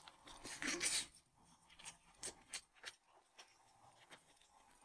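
Close eating sounds from a mouthful of Northeastern rice wrap (饭包) in green leaves, held in a plastic bag: a crinkly rustle about half a second in, the loudest sound, then about four soft clicks of chewing.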